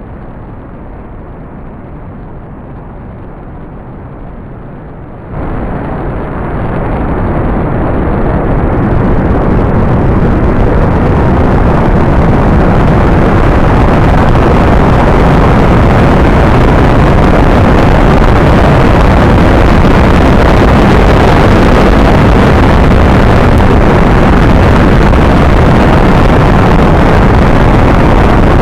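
Space rocket launch sound effect: a steady low rumble, then about five seconds in a sudden jump to a louder, fuller rumble that builds for several more seconds and then holds loud and even.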